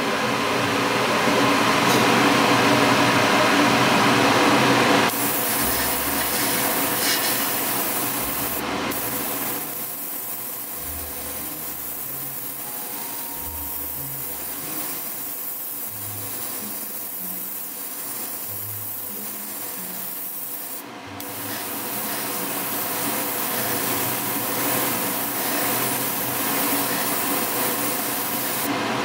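Airbrush spraying pearl paint in a steady hiss. The hiss is loudest for the first five seconds, then drops, and breaks off briefly about nine and twenty-one seconds in as the trigger is let go.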